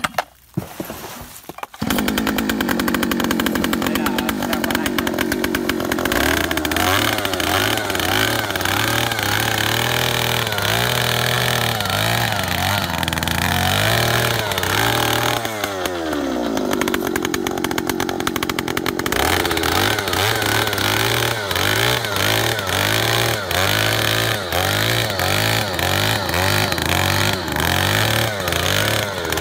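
Oshima 2PS earth auger's 54 cc two-stroke engine catching about two seconds in, then running at high revs as the auger bores into soil. The engine note dips and rises with load and throttle, falling off around the middle and picking up again.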